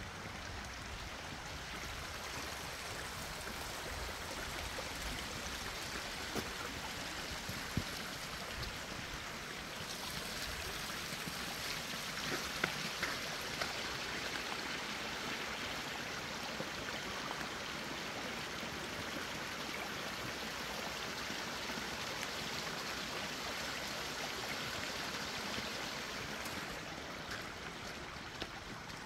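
Creek water flowing and rushing steadily, with a few faint clicks.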